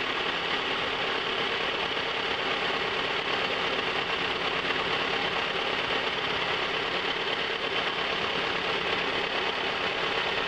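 1997 Toyota RAV4's four-cylinder engine idling roughly and steadily with the hood open, without stalling. The owner suspects cylinder number 2 isn't firing at all.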